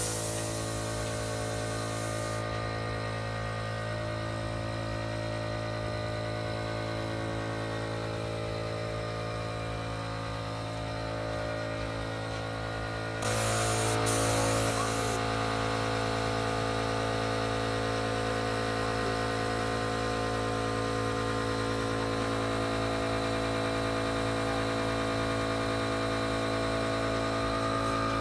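Paint spray gun hissing in two short bursts, one at the start and one about 13 seconds in, over a steady machine hum.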